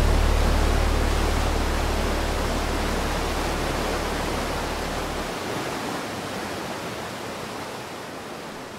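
Soundtrack outro: a steady noise wash over a deep held low hum that stops abruptly about five seconds in, the whole fading away slowly.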